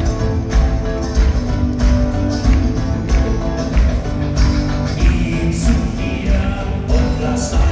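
Live rock band playing, with electric and acoustic guitars over drums keeping a steady beat, heard from the audience.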